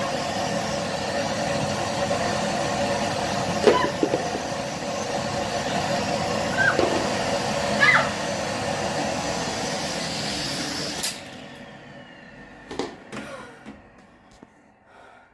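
Vacuum cleaner motor running steadily with a whine, then switched off about eleven seconds in and winding down.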